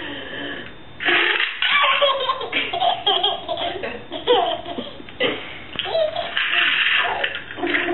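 A baby laughing hard in repeated bursts of belly laughter with short breaks between them.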